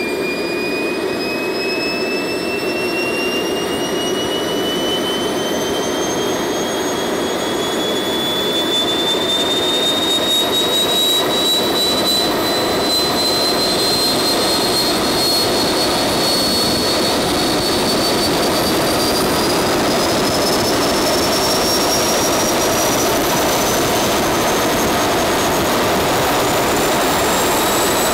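Small RC model jet turbine burning HydroDiesel (80% diesel, 20% water), spooling up through its automatic fuel ramp after start. A high whine climbs steadily in pitch over a dense rushing noise, holds briefly about halfway through, then climbs again, and the engine gets louder about ten seconds in.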